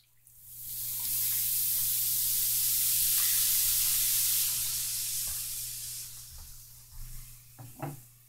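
Baking soda fizzing and foaming in hot water in a bathroom sink: a steady hiss that sets in just after the pour and fades away after about four seconds. A few short knocks near the end.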